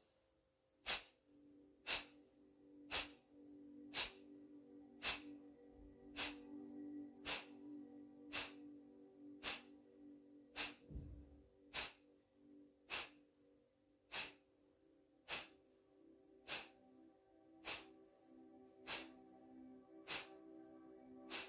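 Kapalabhati (breath of fire) breathing: forceful nasal exhalations, each a short sharp puff pumped out by a snap of the lower belly, in a steady rhythm of about one a second at medium pace, with quiet passive inhalations between.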